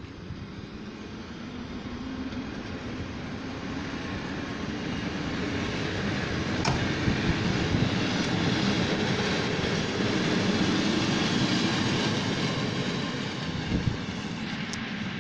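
Passenger carriages of a TLK train rolling past on the rails, a rumbling wheel-on-rail noise that builds steadily to its loudest a little past halfway, then eases as the last car goes by.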